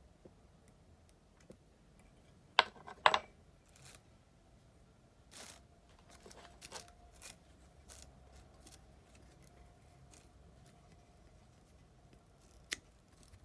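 Small fly-tying scissors snipping: two sharp snips about two and a half and three seconds in, then a series of lighter clicks and snips, and one more sharp snip near the end.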